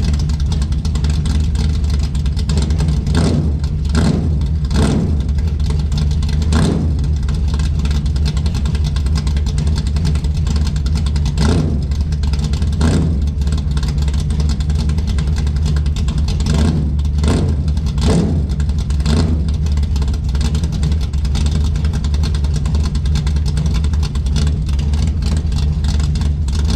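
Ford Mustang's engine idling steadily while warming up in the cold, with about a dozen short, sharp sounds standing out over the idle.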